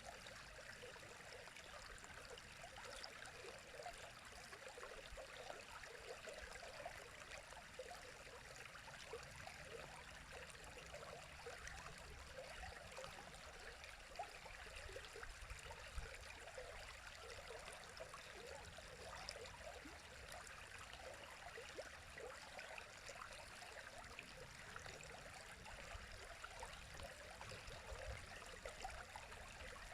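A river flowing steadily, a fairly faint, even rush of running water with a fine trickling texture.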